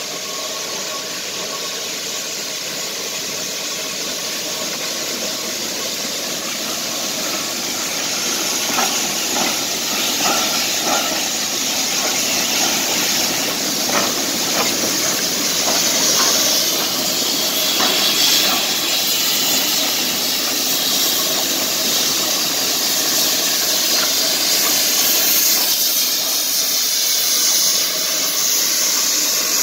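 A string of geared steam locomotives, Shays among them, rolling slowly past close by, with steady steam hiss and a few light clanks from the running gear about a third of the way in. It grows louder as they draw level.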